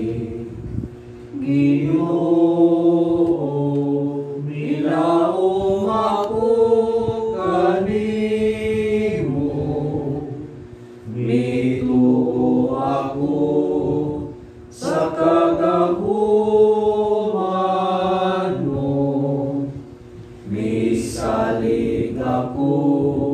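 Voices singing a slow hymn, held notes moving step by step in phrases, with brief pauses between phrases.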